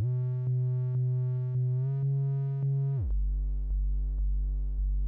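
Modular synthesizer tone: a Wiard Oscillator triangle wave driven through the Boundary's four-quadrant VCA into its output limiter, so it saturates into a buzzy, harmonic-rich drone pulsing about twice a second. Its pitch steps up slightly near the two-second mark and drops much lower about three seconds in as the oscillator is retuned.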